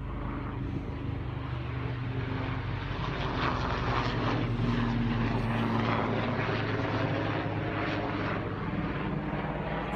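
A steady engine drone that grows louder about three seconds in and eases slightly near the end.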